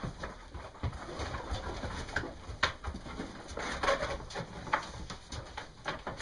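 A flock of East Friesian ewes crowding and milling in a wooden barn pen: irregular knocks and shuffling from hooves and bodies against the boards, with animal calls among them.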